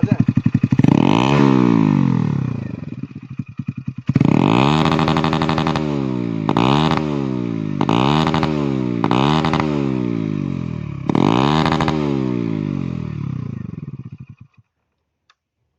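Hero Splendor's single-cylinder motorcycle engine, fitted with a modified exhaust, idles briefly and is then revved in a series of about six throttle blips, the revs falling back after each. It is switched off near the end.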